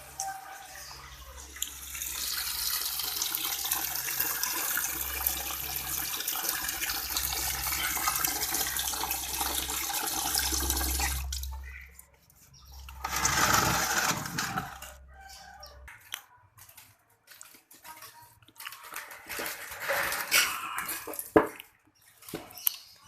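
Water running and splashing into a bucket, steady for about ten seconds, then cutting off suddenly; after it comes a shorter splash and scattered irregular splashes and knocks.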